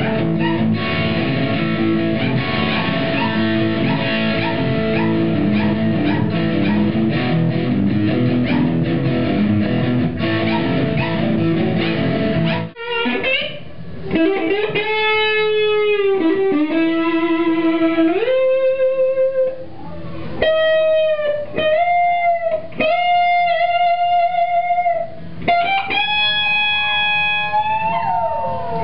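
Guitar playing: about thirteen seconds of full, rhythmic chords that stop abruptly, then a string of long held single notes that bend and slide up and down in pitch, each starting with a sharp pluck.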